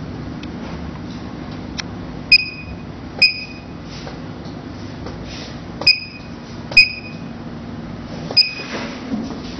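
Five short electronic beeps from a diode lipolaser slimming machine, each a sharp click with a brief high ping, irregularly spaced over a steady low hum.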